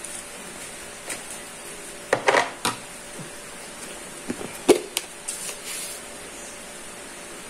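Scattered knocks, clatters and rustles of kitchen items being handled, over a steady low hum.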